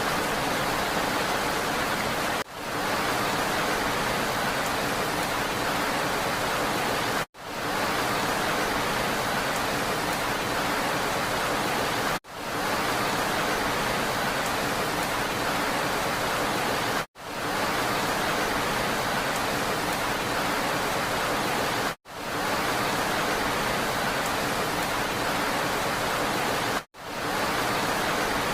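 Steady hiss of rain, broken by a brief dropout about every five seconds, six times, each followed by a quick fade back in: a short rain recording played on a loop.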